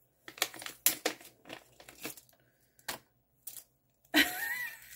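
A small wrapped gift package being unwrapped by hand: a string of short, irregular crinkling and tearing sounds from its wrapping. Near the end a brief wordless vocal exclamation.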